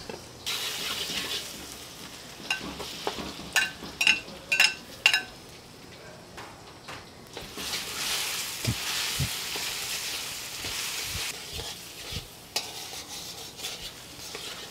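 Minced garlic and raw ground meat sizzling in a hot wok over a gas flame, with a steady hiss. About three and a half seconds in, metal tongs clink sharply against the wok and plate about four times, half a second apart. The sizzle grows louder about eight seconds in as the meat is stirred.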